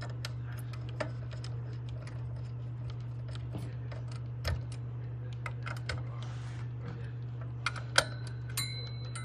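Small clicks and ticks of a Phillips screwdriver and 4-40 machine screws being tightened into the aluminum mounting bracket of a transceiver's amplifier module, over a steady low hum. A sharper metallic click about eight seconds in, followed by a brief ringing.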